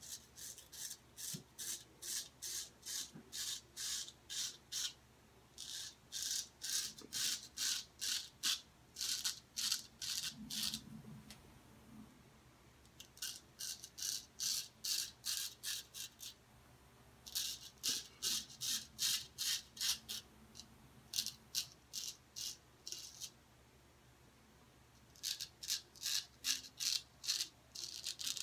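Henckels 415 straight razor scraping through lathered stubble in short, rapid strokes, about two or three a second, in runs broken by brief pauses.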